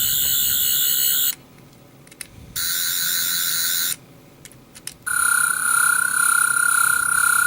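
Toy sonic screwdriver, the 12th Doctor's second sonic, playing its electronic sound effect three times: a high warbling buzz that stops about a second in, a second short one around three seconds in, then a longer, louder one with a steady high whine from about five seconds in.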